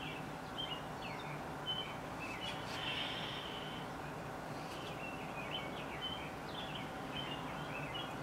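Faint bird chirps, short and scattered, over a low steady background noise.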